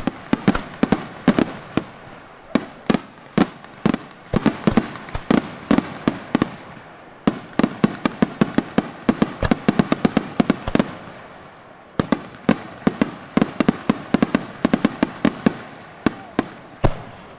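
Daytime fireworks display: rapid volleys of sharp bangs, several a second, with short lulls about seven and twelve seconds in, stopping just before the end.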